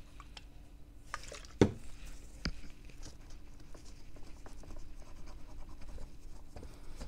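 Light scratching and scraping on a circuit board as the soldered joint at the base of an M8 battery post is cleaned, with a knock about one and a half seconds in and a sharp click about a second later.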